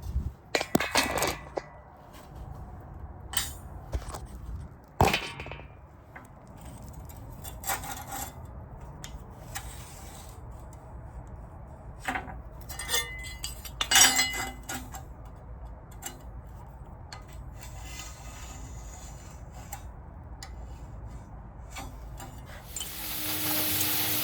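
Pieces of steel clinking and knocking as they are handled and set down, a dozen or so sharp metallic hits with short ringing. Near the end a loud steady hiss starts.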